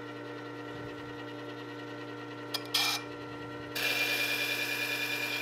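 Work Sharp benchtop sharpener's motor running with a steady hum, spinning its coarse sandpaper glass wheel. A brief scrape comes near the middle. About two-thirds of the way in, a dull chisel's edge meets the wheel and a loud, steady grinding hiss starts.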